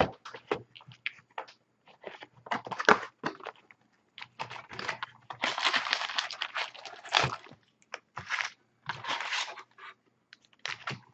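Plastic shrink wrap torn off a sealed box of trading cards, then the cardboard box opened and the foil packs handled: irregular crinkling, tearing and rustling in short bursts, with a longer stretch of crackling about five and a half seconds in.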